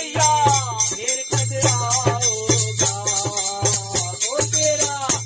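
Devotional bhajan sung by men's voices, with a chimta (metal fire-tongs fitted with jingle rings) shaken in a steady jangling beat.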